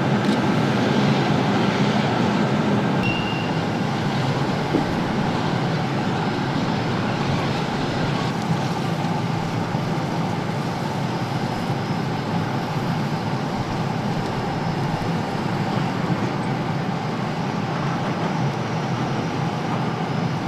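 Steady, loud mechanical roar like a running engine, even throughout, with a slight change in its hiss about eight seconds in.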